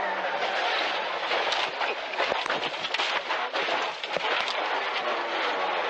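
Rally car ploughing through deep snow, heard from inside the cabin: a dense rush of snow pelting the bodywork and windscreen, with a flurry of knocks and thuds from about a second and a half to four and a half seconds in.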